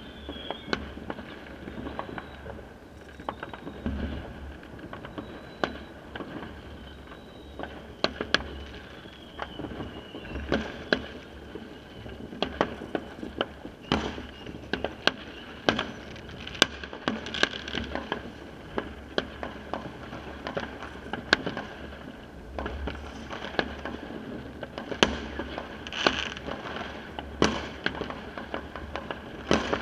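Fireworks and firecrackers going off, many sharp bangs and cracks at irregular intervals, a few of them louder, with a thin whistle falling in pitch about nine seconds in.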